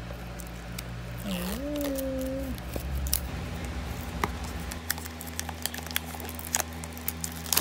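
Plastic shrink-wrap on a small cardboard box being peeled and torn off by its tear strip, giving scattered crinkles and sharp little clicks. A brief hummed voice tone comes about a second in, over a steady low hum.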